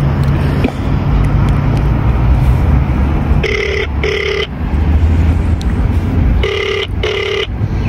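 Telephone ringback tone from a phone on speaker: two double rings ("ring-ring") about three seconds apart, the first starting about three and a half seconds in, meaning the call is ringing out and not yet answered. A steady low rumble runs underneath.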